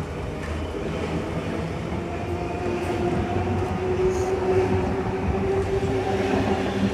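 Electric suburban train pulling out of the platform: a steady rumble of the cars with a motor whine that grows stronger about halfway through.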